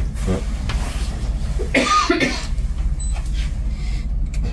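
Houseboat's motor running with a steady low hum while manoeuvring slowly, and a person coughs briefly about two seconds in.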